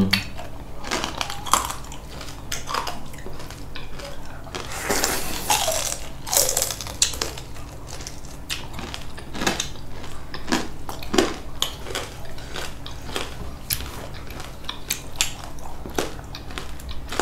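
Close-up eating sounds: chewing and crunching food, with scattered clinks of cutlery against plates.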